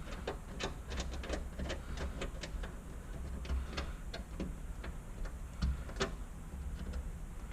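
A series of light clicks and ticks from hand work on the bolts and nuts of a car's AC delete panel. They come about three a second at first and grow sparser after about three seconds, with a couple of louder knocks near the end.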